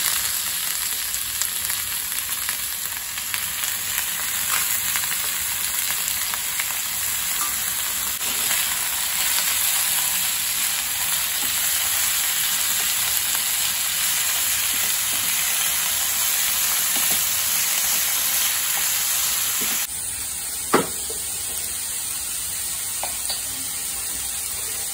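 Sliced bitter gourd with onion and green chillies frying in hot oil in a pan, a steady sizzle while it is stirred with a wooden spatula. The sizzle drops abruptly about twenty seconds in, and a single sharp click comes a second later.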